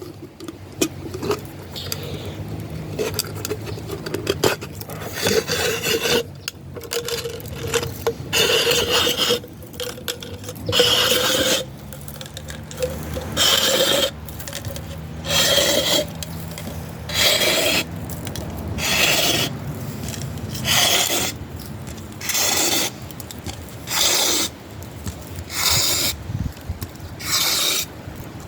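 Plastic bottle being cut into a continuous strip by a razor-bladed bottle-cordage tool, the plastic scraping against the blade and tool as the strip is pulled through. It starts as a steadier scraping with a faint squeal, then turns into repeated hard scratchy pulls about every second and a half.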